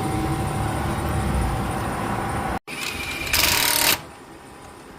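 A steady mechanical running noise that stops abruptly about two and a half seconds in. After it comes a quieter stretch and a short, loud hiss lasting under a second.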